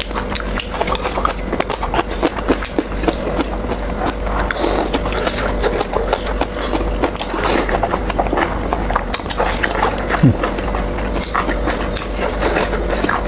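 Close-miked eating sounds: noodles being slurped in and chewed, with irregular wet mouth smacks and clicks and a couple of longer slurps.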